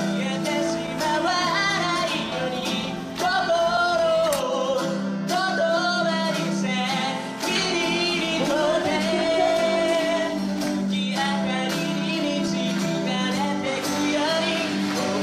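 Background music: a song with a singing voice carrying the melody over steady instrumental accompaniment and a light regular beat.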